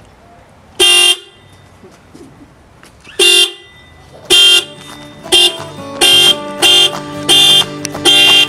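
Newly installed Hella Supertone car horns, a high- and low-tone pair, sounding in eight short blasts. The first two are about two seconds apart, and from about halfway in the blasts come in quicker succession. Background music starts under the later honks.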